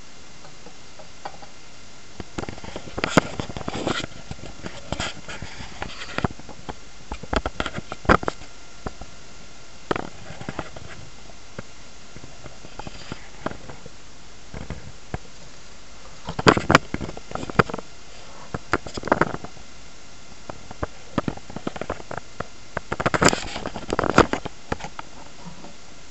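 Handling noise: irregular clicks, knocks and rustling as hands and a handheld camera move about a glass terrarium, coming in bunches, with the loudest knocks about two-thirds of the way through and near the end.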